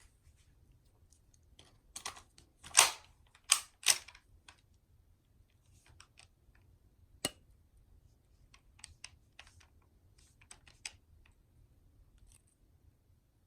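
Irregular sharp clicks and knocks of hard objects being handled. The loudest are three clacks close together about three seconds in, then a single sharp click and a run of lighter clicks later on.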